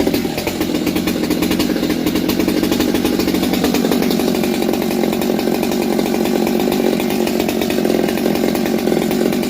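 STIHL MS200T two-stroke top-handle chainsaw running steadily at a constant speed. The saw has a base gasket delete and a modified muffler.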